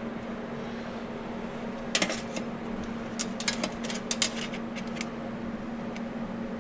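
Steady electrical or fan hum from shop equipment. About two seconds in, a quick run of sharp metallic clicks and knocks lasts roughly three seconds, the sound of small metal parts being handled and set down.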